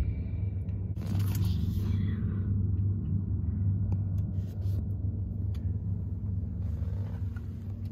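Truck engine idling, a steady low rumble heard from inside the cab, with a few faint clicks.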